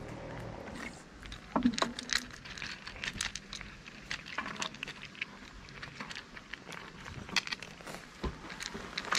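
Two cats crunching dry kibble from plastic bowls close to the microphone: quick, irregular crunches and clicks. A louder knock comes about one and a half seconds in.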